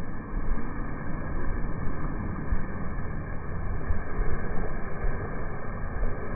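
Wind buffeting the microphone: a steady, uneven low rumble with frequent jolts.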